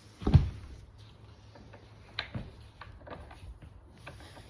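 A heavy thump about a quarter second in, then scattered light clicks and knocks as bar stool parts are handled and fitted together during assembly.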